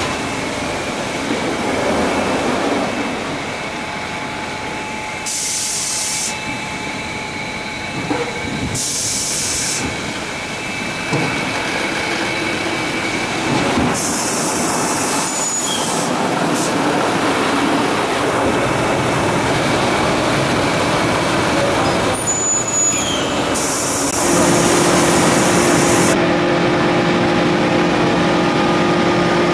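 Automatic car wash gantry running, with water spraying and machinery noise. Several spells of high hiss switch on and off abruptly, and near the end a steady motor hum sets in.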